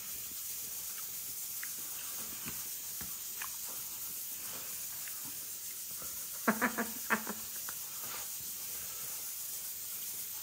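Quiet steady hiss with faint clicks of a fork in aluminium foil and chewing, and a short run of vocal sounds about six and a half seconds in as the grilled fish is tasted.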